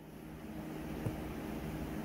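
Steady low hum with a hiss, the background noise of a running machine in the room, with a faint tick about a second in.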